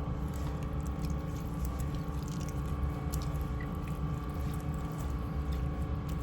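Hands rubbing seasoning into raw chicken: soft wet squishing with small scattered crackles, over a steady background hum.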